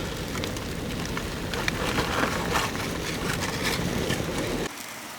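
Scallop sizzling in a hot pot: a steady crackling hiss that drops away abruptly near the end.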